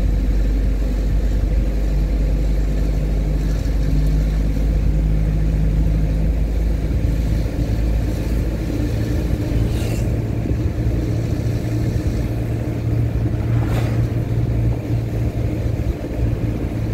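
Vehicle engine running with road noise while driving steadily. The engine hum shifts pitch slightly a few times, and there are two brief knocks about ten and fourteen seconds in.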